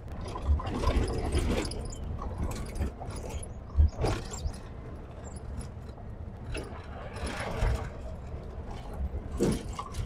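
Open-top Maruti Gypsy safari jeep driving along a rough dirt forest track: a steady low engine and road rumble with knocks and rattles from the body as it goes over bumps, the loudest jolt about four seconds in.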